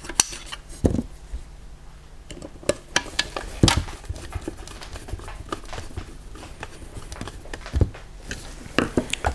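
Scattered clicks and knocks of handling as an exhaust fan's small motor is bolted back into its plastic housing, with the sharpest knock a little under four seconds in.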